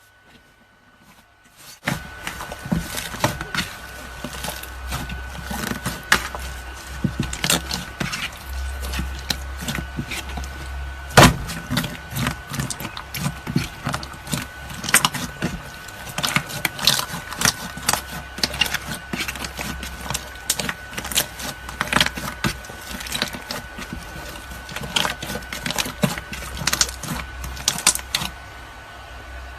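Slime being squeezed and stretched by hand, making a dense, irregular run of sticky clicks and pops that starts about two seconds in, with one sharper snap near the middle, over a steady low hum.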